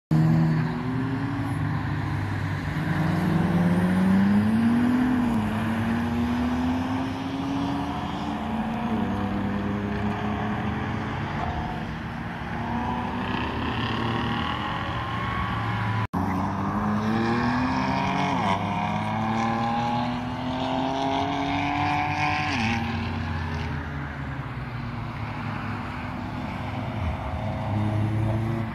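Several Ford Focus cars lapping a race circuit, engines revving hard through the gears: each tone climbs, then drops back at an upshift, with more than one car heard at once.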